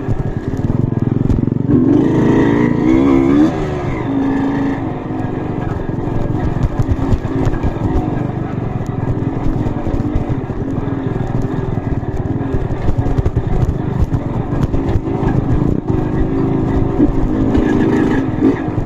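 Trail motorcycle engine revving and labouring, its pitch rising and falling with the throttle, loudest a couple of seconds in.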